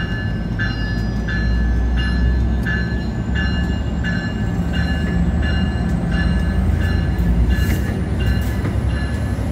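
Bombardier MultiLevel commuter train pulling out of the station, its cars rolling past with a steady low rumble. A bell rings steadily about twice a second, and a faint high whine rises slowly in pitch.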